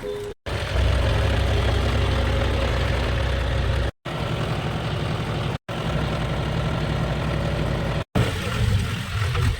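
A borewell-flushing air compressor's engine running steadily under load. The sound is cut off abruptly for a split second four times.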